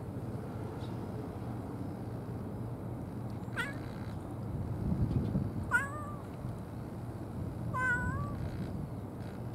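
A cat meowing three times in short calls a couple of seconds apart, the last two wavering in pitch, over steady low background noise.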